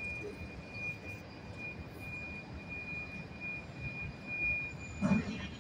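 Outdoor street ambience: a steady low rumble of distant traffic with a thin, continuous high-pitched tone that swells and fades. A brief louder sound comes about five seconds in.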